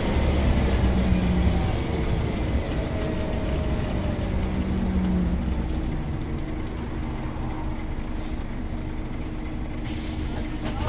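Scania L94UB Omnicity bus's diesel engine pulling, heard from inside the saloon with road rumble. The engine note eases a little after about two seconds, and a short hiss comes near the end.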